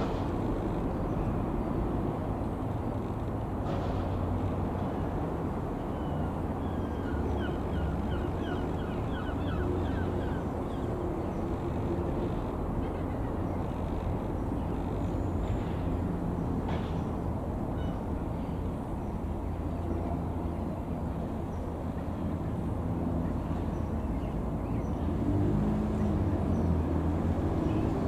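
A Piper PA-28 light aircraft's single piston engine drones steadily as the plane flies over, with a short run of high chirps about eight seconds in.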